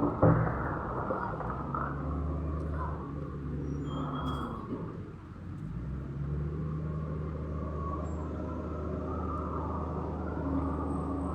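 Diesel engine of heavy construction equipment, likely a backhoe, running steadily with a low rumble. There is a loud knock just after the start, and the engine sound dips briefly about five seconds in before picking up again.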